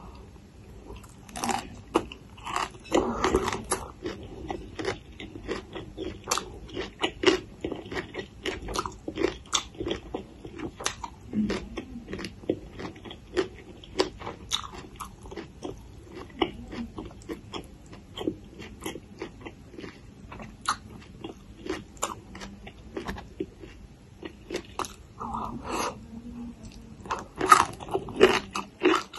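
Crisp biting and chewing of raw papaya salad and fresh vegetables, a steady run of crunchy bites and wet chewing. The loudest crunches come about three seconds in and again near the end.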